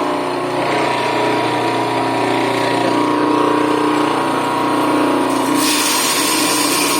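Chili grinder machine running steadily, a constant mechanical hum with a steady whine; a brighter hiss joins about five and a half seconds in.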